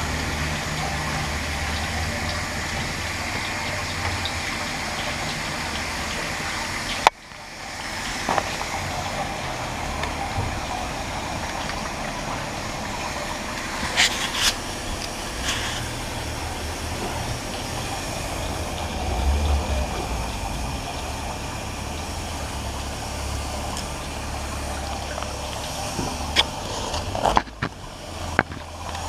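A steady low hum and hiss of running machinery, with a few sharp clicks and knocks from the bicycle being handled and wiped with a rag. The sound drops out abruptly for a moment about seven seconds in.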